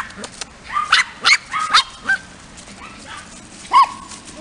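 Dog yipping: a quick run of short, high yaps about a second in, then a louder single yip near the end.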